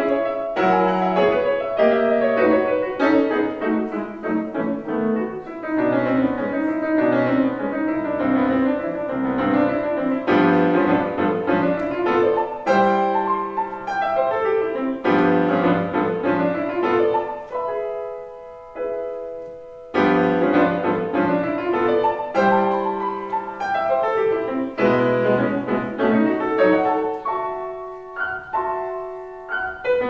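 Solo grand piano playing a classical piece in quick runs of many short notes. About two-thirds of the way through it softens to a few held notes for a couple of seconds, then the fast notes return.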